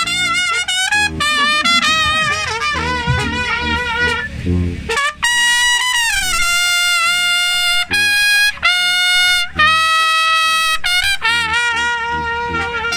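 Tamborazo brass band playing live. Two trumpets carry the melody with vibrato and long held notes, over a low repeating beat from the drums and tuba.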